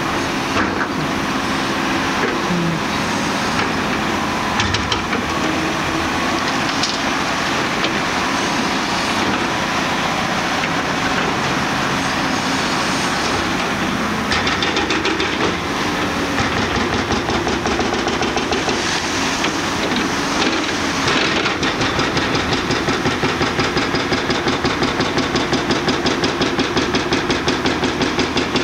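A very large demolition excavator working, its Cat 395 diesel engine and hydraulics running steadily. About two-thirds of the way through, a fast, even clattering of about five beats a second joins in and keeps going.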